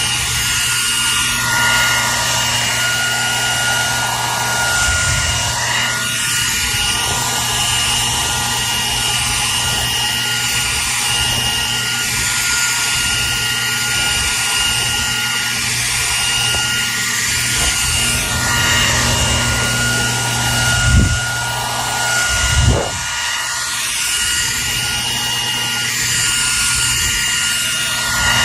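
Hair dryer running steadily: an even rush of blowing air with a constant high motor whine and a low hum. Two brief low thumps come in the last third.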